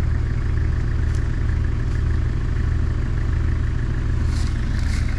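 A 4WD's diesel engine idling steadily, with an even low hum and no revving.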